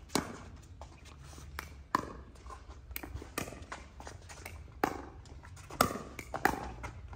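Pickleball rally: paddles hitting the hard plastic ball in sharp pops, about half a dozen hits at irregular intervals, with lighter taps between.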